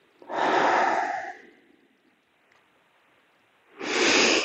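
A woman's slow, deep breaths in a calming breathing exercise: one long breath lasting about a second and a half just after the start, a pause of about two seconds, then another breath near the end.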